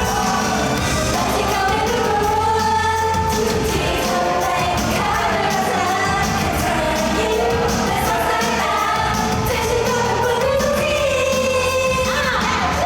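A Thai pop song performed on stage: a female singer's vocals over a backing track with a steady beat.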